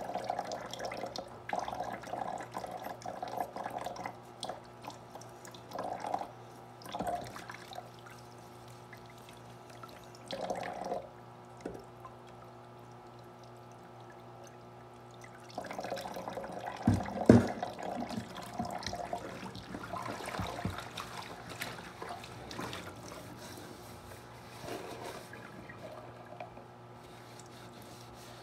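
Thin stream of water from a kitchen faucet splashing over hands as they rinse something under it, the splashing coming and going. A sharp knock about 17 seconds in, over a steady low hum.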